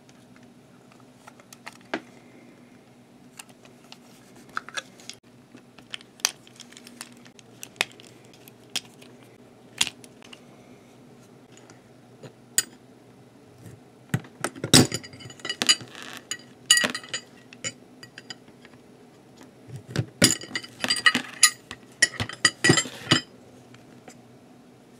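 Small plastic clicks and taps as a Trackmaster toy train's plastic chassis is handled and worked at with a flat plastic tool, with two spells of busier clattering, one about halfway through and one near the end.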